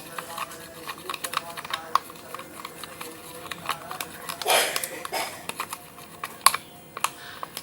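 Glue, food colouring and liquid soap being stirred in a container: irregular quick clicks and taps of the stirrer against the container, with a short, louder wet smear of sound about four and a half seconds in.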